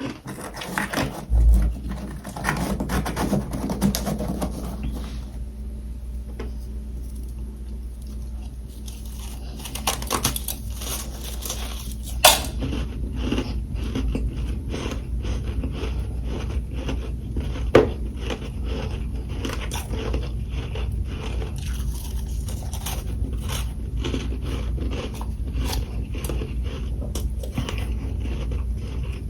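Freezer frost being bitten and chewed close to the microphone: a dense, irregular run of crunches over a steady low hum, with two sharp clicks, one about twelve seconds in and one about eighteen seconds in.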